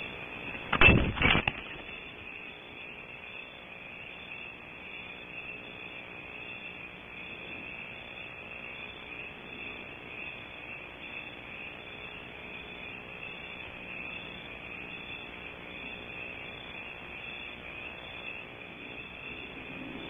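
Barn owl arriving in a tree-cavity nest: a quick cluster of thumps about a second in, over a steady high hiss.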